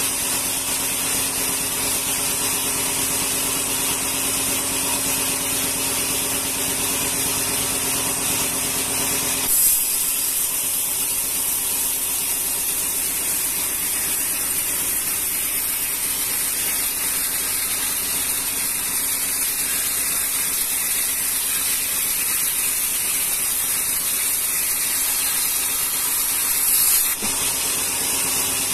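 Sawmill band saw ripping rengas wood, a steady loud hiss of the blade with a low hum under it. About ten seconds in there is a brief louder burst and the hum drops away while the hiss runs on; near the end another brief burst and the hum returns.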